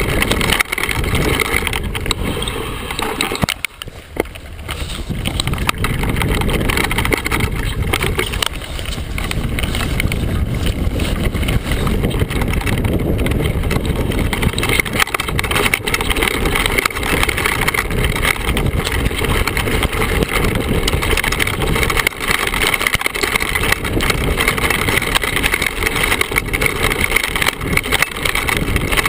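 Mountain bike riding down a rocky downhill trail, heard from a camera close to the frame: tyres crunching over stones and loose leaves, the bike rattling and clattering over the bumps, with wind on the microphone. The noise drops briefly about four seconds in, then runs on.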